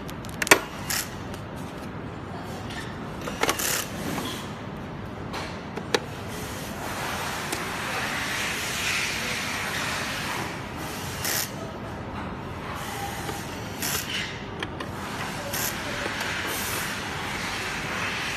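Plastic projector housing being pried open by hand, its snap clips giving sharp clicks at intervals. A steady rustle of handling and plastic parts being moved runs under them, strongest in the second half.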